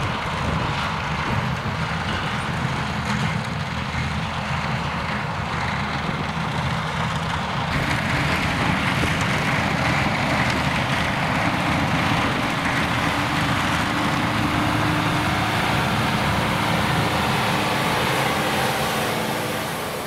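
Vervaet Beet Eater 617 self-propelled sugar beet harvester running steadily at work lifting beet, joined by a John Deere tractor alongside in the first part. About eight seconds in, the sound changes abruptly to a brighter, hissier machine noise, which fades out near the end.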